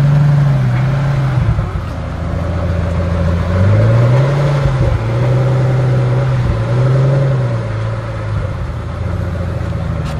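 Pagani Huayra Roadster's twin-turbo V12 running at low speed and being revved in short blips, its pitch rising and falling a few times, the biggest rev about four seconds in.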